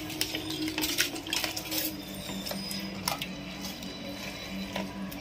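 A silicone spatula scraping and knocking against the side of a steel cooking pot, in irregular strokes, while mutton and yogurt are stirred and fried.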